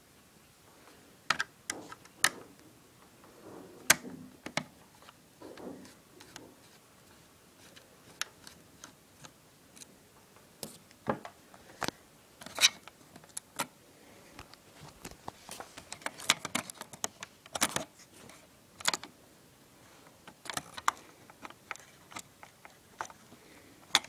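Irregular clicks, taps and scrapes of plastic and metal parts being handled while an HP Omnibook XT1000s laptop is taken apart, with a quick run of clicks about two-thirds of the way through.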